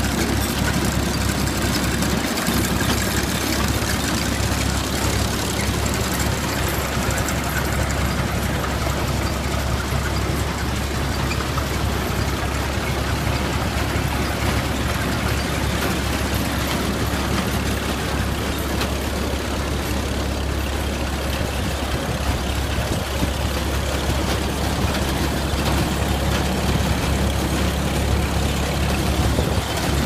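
Engine running steadily, driving an Allis-Chalmers Roto-Baler, a round baler.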